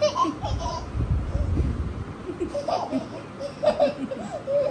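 Baby laughing and squealing in several short peals as she plays on a woman's face, with the woman laughing along. A low rumble of movement comes about a second in.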